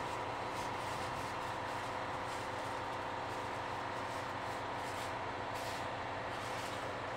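KiHa 183 series diesel railcar idling at a station platform: a steady engine hum with a constant higher tone.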